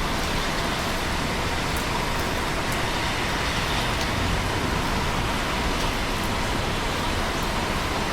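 Steady rain falling, an even hiss of many drops with no let-up, a few faint sharper drop ticks here and there.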